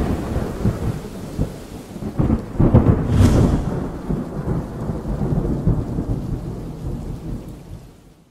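Thunder rolling over rain, with a sharp crack about three seconds in, then dying away near the end.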